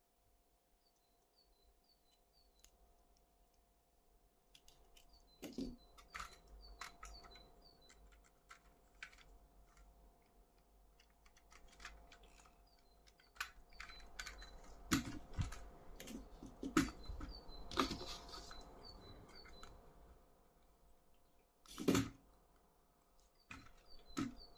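Irregular clicks, taps and light knocks of hands handling plastic toy cars and their packaging, sparse at first and busier from about five seconds in, with one louder knock near the end. Faint high bird chirps come in short runs over a faint steady hum.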